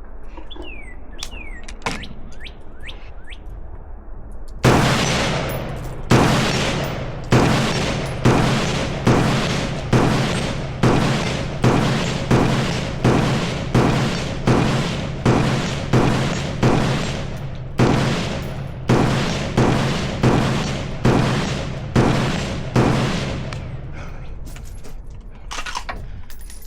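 Close-range gunfire from a semi-automatic firearm: about two dozen shots at a steady pace of roughly one and a half a second, each with a short ringing tail. It starts about five seconds in and stops a few seconds before the end.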